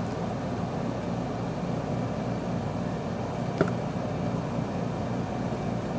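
Air conditioner running steadily, with one brief click about three and a half seconds in.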